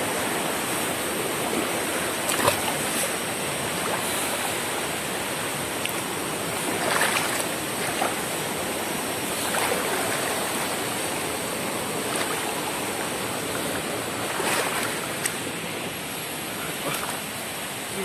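Steady rush of water from a waterfall and its stream.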